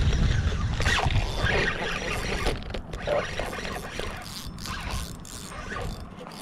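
Spinning rod and reel worked while a hooked fish is played: scattered clicks and rattles from the reel and rod handling, with a heavy low rumble on the microphone in the first second or so.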